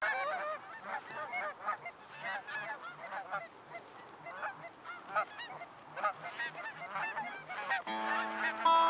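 A flock of Canada geese honking, many short calls overlapping one another. Music comes in near the end.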